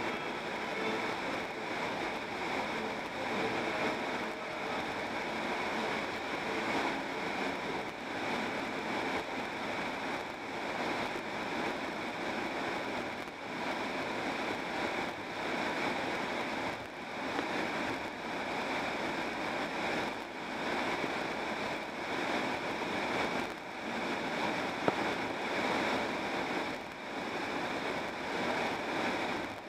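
Steady road noise of a car driving at highway speed, tyre rumble and wind, heard from inside the cabin, swelling and easing slightly. A single brief tick near the end.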